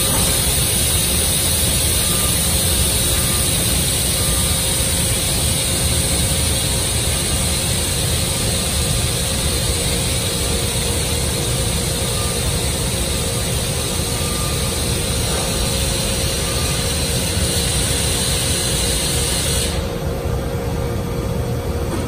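SNK HPS-120B five-axis horizontal profiler running while its pallet shuttles a workpiece table into the machine: a steady mechanical rumble and hiss with a steady hum. The high hiss drops away about two seconds before the end.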